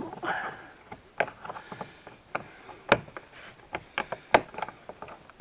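Plastic trim tool prying at the edge of a puddle lamp set in a plastic car door card: scraping with a series of sharp clicks and knocks, two louder ones about three and four and a half seconds in.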